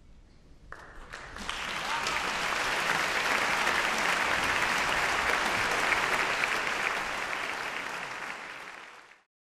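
Concert audience applauding after a quiet pause: the clapping starts about a second in, swells quickly into dense steady applause, and fades out near the end.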